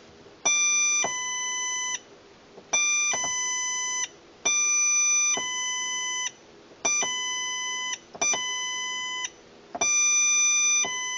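Electronic two-tone doorbell built on an NE555 timer chip, sounding its 'ding-dong' through a small speaker six times: each chime is a higher tone stepping down to a lower one, with short pauses between.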